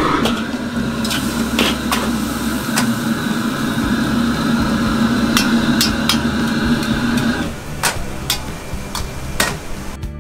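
Stainless-steel wok ladle and perforated strainer clanking against the wok and each other, a dozen or so sharp knocks spread out, over the steady rush of a restaurant wok burner. The burner's rush cuts off about three quarters of the way in, and a few clanks go on after it.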